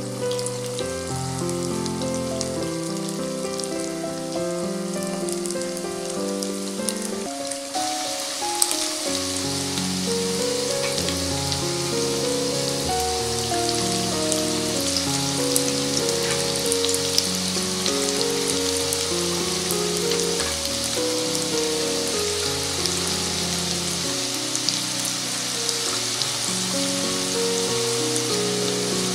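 Rice and gram-flour (besan) pakodas deep-frying in hot oil: a steady sizzle with scattered crackles. The sizzle grows louder about eight seconds in as more batter goes into the oil. Background music plays throughout.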